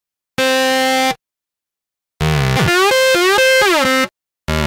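A saw-wave 3xOsc synth in FL Studio. First one held note sounds briefly. Then a squeaky, whiny 303-style sequence plays, its slide notes gliding up and down between pitches. It stops and starts over near the end.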